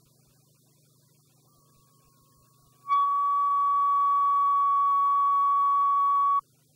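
Broadcast line-up reference tone of about 1 kHz on a videotape leader with colour bars and countdown. The tone comes in faintly about a second and a half in, then sounds loud and steady from about three seconds in, and cuts off suddenly about three and a half seconds later, over a faint low hum.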